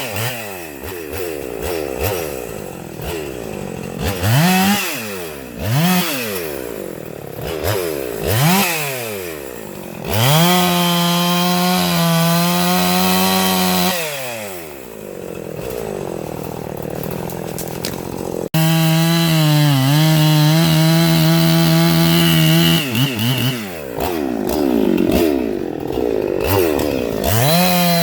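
Husqvarna two-stroke gas chainsaw revving up and down in short blips, then held at full throttle for several seconds at a time, cutting wood.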